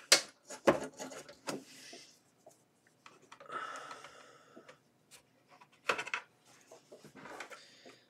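Plastic clicks and scraping as a nylon pry tool is worked along the seam of a Lenovo Ideapad 330 laptop's base cover, prising its retaining clips free. A run of sharp clicks comes in the first two seconds, a longer scrape a little before halfway, and more clicks about six seconds in.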